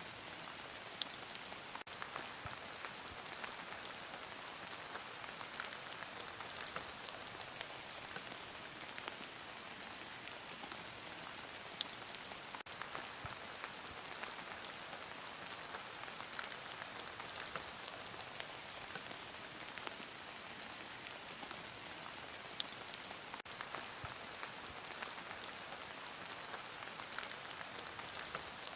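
Heavy rain falling steadily, a dense even hiss of rain on a surface with scattered sharper drop hits.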